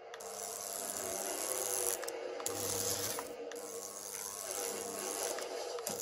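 The tiny electric motor and gears of a Hot Wheels Subaru 22B converted to remote control, whirring as the car drives. The pitch shifts with speed, and it eases off briefly about two and about three and a half seconds in.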